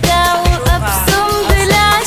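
Background music: a song with a sung melody over a steady beat and bass.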